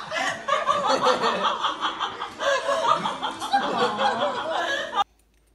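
Laughter, lively and continuous, cut off suddenly about five seconds in.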